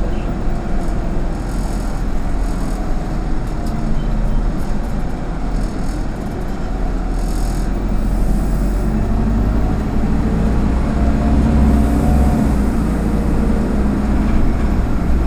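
Autosan Sancity M09LE city bus heard from inside while under way: a steady engine and road rumble that grows louder about two-thirds of the way through, with a few faint rattles early on.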